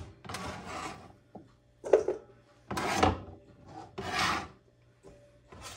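About five short, rough scraping strokes against a cutting board, one after another with brief pauses between.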